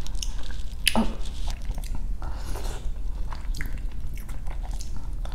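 Close-miked eating: a sharp mouth sound about a second in as a spoonful of rice in coconut soup goes into the mouth, then soft, wet chewing with small irregular clicks.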